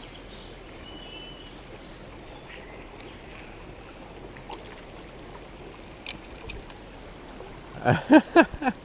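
Steady rush of flowing creek water, with a sharp click about three seconds in and a few short voice-like sounds near the end.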